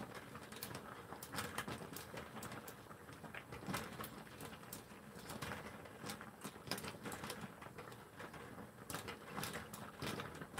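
Pot of clam sujebi boiling: faint, irregular popping and ticking over a low bubbling hiss, which the cook says is the Manila clams at the bottom of the pot popping as the soup boils.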